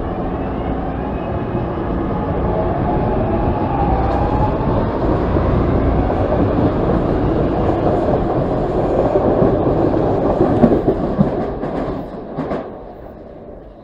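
SEPTA Market–Frankford Line M-4 subway train pulling away from the platform: its traction motors whine up in pitch over the first few seconds as it accelerates. Wheel and track noise builds as the cars pass, with a few sharp clacks, then fades quickly as the train leaves, near the end.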